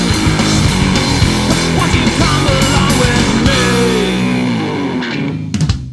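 Rock band of electric guitar, bass and drums playing the closing bars of a song, with sliding guitar lines. About four and a half seconds in the full band drops away, a couple of last drum hits land near the end, and a final low note rings and fades out.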